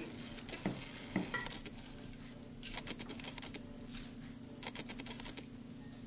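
Hands wringing rinsed sliced red onions in a stainless steel bowl and lifting them out: scattered light taps and clinks against the metal bowl with soft wet handling, over a steady low hum.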